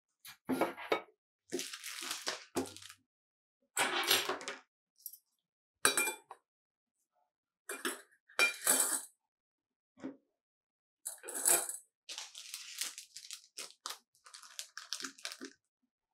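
Dishes and kitchenware being handled: a string of separate clinks and knocks, with a few short scraping or rustling noises between them.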